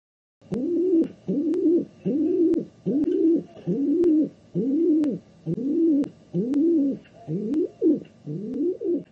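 Pigeon cooing in a quick run of short calls that rise and fall in pitch, about two a second, with sharp clicks among them.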